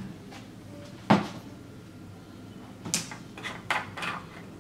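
A plastic resin bottle being handled: a sharp knock about a second in, then a cluster of clicks and knocks near the end.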